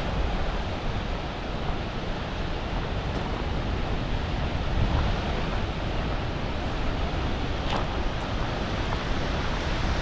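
Steady roar of rushing water from a waterfall, with wind buffeting the microphone.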